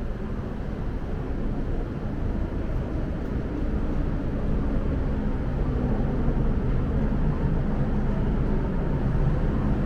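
MTR M-Train electric multiple unit pulling into the platform: a low rumble with a faint motor whine, growing louder as the train comes in.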